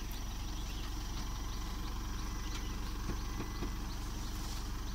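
Isuzu D-Max 3.0 Ddi four-cylinder turbo-diesel engine idling steadily with a low, even sound.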